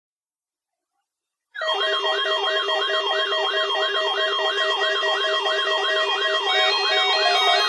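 Electronic siren-like wail, sweeping up and down about three times a second over steady synthesizer tones. It starts suddenly after about a second and a half of silence.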